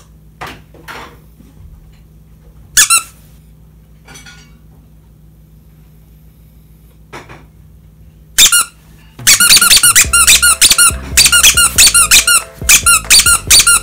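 Squeaker in a plush squirrel dog toy being squeezed: a single high squeak about three seconds in, another near eight seconds, then a fast, continuous run of squeaks from about nine seconds in.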